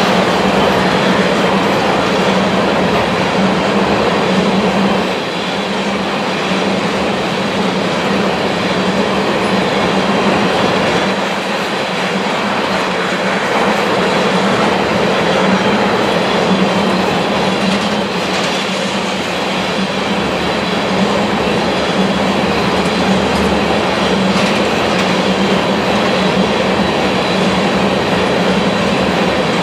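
Freight train of loaded tank cars rolling past at speed, their steel wheels on the rails making a steady, unbroken noise with a low hum running through it.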